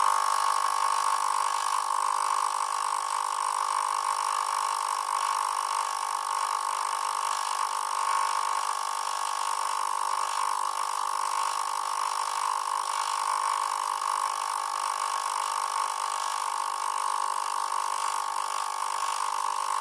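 AquaClear 70 hang-on-back aquarium filter running noisily, a loud, steady mechanical whine with several constant tones and no change in pitch.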